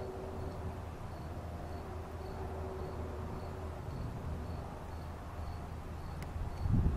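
Night insects chirping: a faint, high chirp repeating evenly about twice a second over a low steady hum. A louder low rumble begins just before the end.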